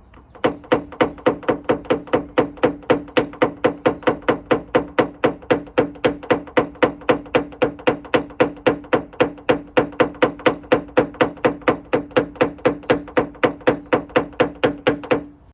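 Paintless dent repair tap-down tool tapping a steel car bonnet, about four even light taps a second, knocking down small high spots left from pushing out a dent. The panel rings with a steady tone under the taps.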